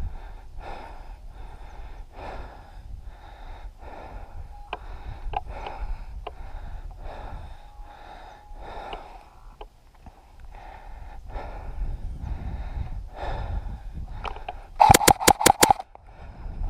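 Breathing and rustling movement over a steady low rumble of handling noise. About a second before the end, an airsoft electric rifle fires a quick burst of about six shots.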